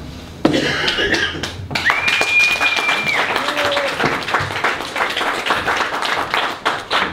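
Audience clapping and cheering as a performer is welcomed to the stage. About two seconds in, a single high whistle rises and is held for just over a second above the applause.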